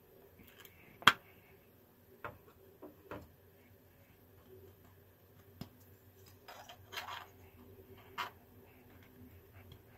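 3D-printed plastic parts clicking and knocking against each other as they are handled and fitted together: one sharp click about a second in, then scattered lighter clicks and a short rattling cluster around seven seconds in, over a faint steady hum.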